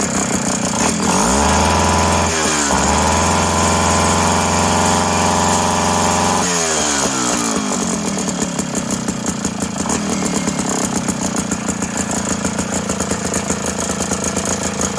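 Tecumseh 3-horsepower two-stroke engine on an ice auger running on a Lauson carburetor whose hardened diaphragm was softened with brake fluid. It revs up about a second in, holds high for several seconds, then drops back to a pulsing idle.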